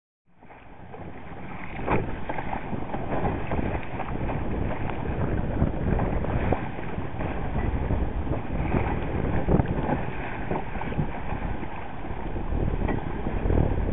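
Wind buffeting the microphone over water rushing along and slapping against the hull of a small sailboat under way, with irregular sharp slaps of waves. The sound fades in over the first two seconds.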